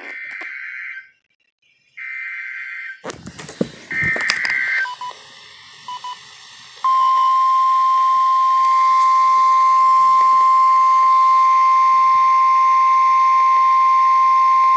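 Emergency Alert System (SAME) header: three short, harsh, buzzy digital data bursts, with a few clicks between the second and third. About seven seconds in, a loud, steady single-pitch alarm tone begins and holds. This is the 1050 Hz alert tone that NOAA Weather Radio sounds before a warning.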